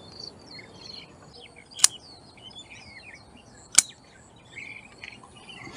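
Scissors snipping okra pods from the plant, two sharp clicks about two seconds apart. Small birds chirp throughout.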